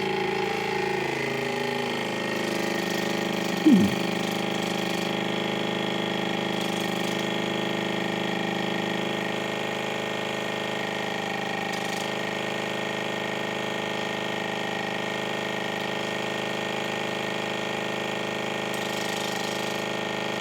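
Electric water pick's pump motor running with a steady buzz while it jets warm soapy water to flush earwax from the ear. A brief loud sound cuts in about four seconds in.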